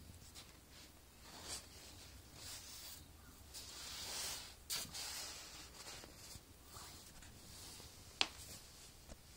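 Faint rustling and brushing of a satiny plush cushion being squeezed and turned by hand, swelling a few times, with one sharp click a little after eight seconds.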